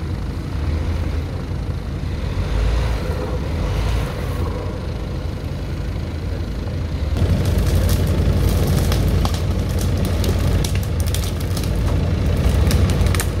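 A Jeep Wrangler's engine idling steadily, the sound getting louder and fuller about seven seconds in, with scattered light clicks over it in the second half.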